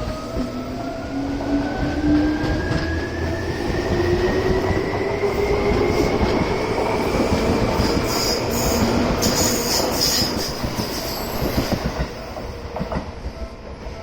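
Seibu 2000-series electric train pulling away, its motor whine rising steadily in pitch as it gathers speed, over the clatter of wheels on rail. A brief high-pitched squeal comes around the middle, and the noise eases near the end as the train moves off.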